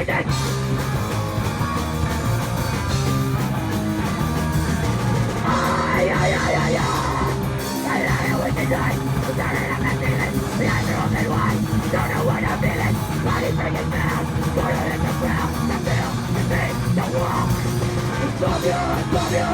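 Hardcore punk band playing live at full volume, distorted electric guitar and bass over drums, cutting in abruptly from silence.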